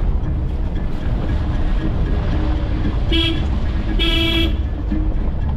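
Vehicle driving over a rough dirt road, its engine and tyres giving a steady low rumble, with two horn honks about three and four seconds in, a short one then a longer one.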